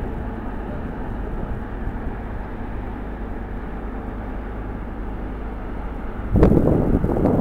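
Steady low drone of a coastal cargo ship's Cummins V12 four-stroke diesel engine as the vessel moves slowly past. About six seconds in, a gust of wind buffets the microphone.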